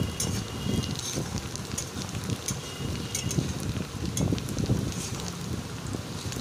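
Sliced onions sizzling and crackling in hot oil in an aluminium kadai, stirred with a metal spatula that scrapes and knocks against the pan, with frequent small pops.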